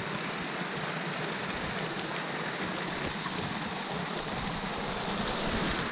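Small waterfall: a steady rush of falling water.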